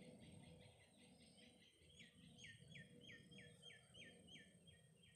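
A faint bird song: a quick series of short, falling notes repeated about four times a second, over a low, even background rumble.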